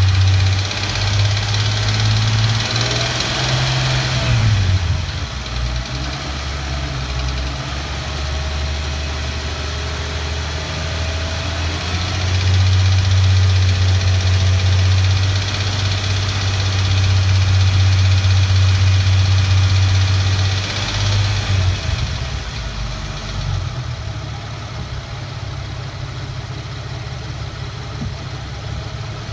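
Infiniti Q50 engine running and being revved, with a metallic tapping or clanking that grows with engine speed. The owner hears it between about 1500 and 4500 rpm and does not know its cause. The revs rise a few seconds in, hold higher through the middle, then fall back and settle lower near the end.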